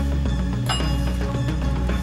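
Background music with a steady low bass line. A brief high ringing note sounds about a third of the way in.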